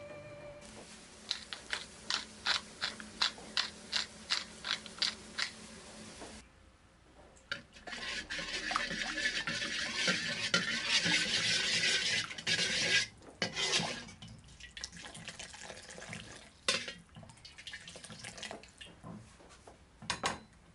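A quick run of about a dozen sharp clicks, about three a second. Then a pan of fish-sauce caramel sizzles loudly for about five seconds as oil goes in, and settles to a quieter crackling simmer.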